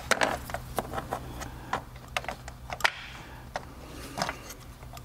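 Plastic tool holders and pliers being handled and fitted on a toolbox drawer's peg board: irregular light clicks and clacks.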